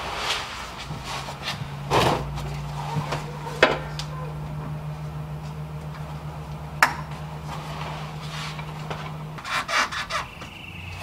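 Sharp clinks and scraping from hand tools as the transmission cooler hoses and their clamps are worked off a car radiator. Under it runs a steady low hum that starts about a second in and stops near the end.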